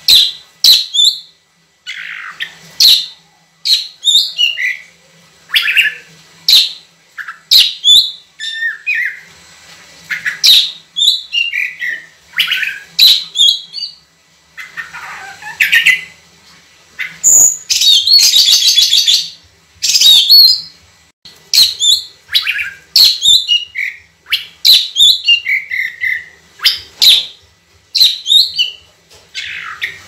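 Oriental magpie-robin singing loudly: a rapid, varied run of short whistled phrases with rising and falling notes, broken a little past halfway by a harsh, rasping stretch of about two seconds.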